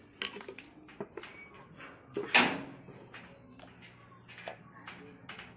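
Small plastic toy dishes and pieces being handled and set down on a tiled floor: a scatter of light taps and clicks, with one louder noise about two seconds in.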